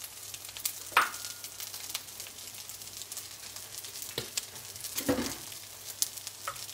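Rice frying in an oiled pan, a steady sizzle full of small crackles, with a sharp knock of a utensil on the pan about a second in and another about five seconds in.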